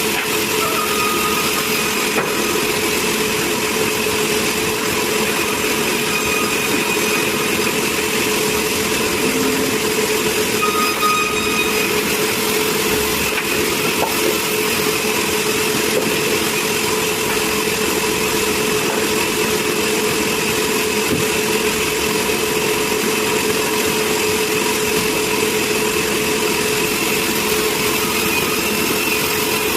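Sawmill machinery running steadily: a continuous mechanical drone with a steady whine, with no breaks or changes.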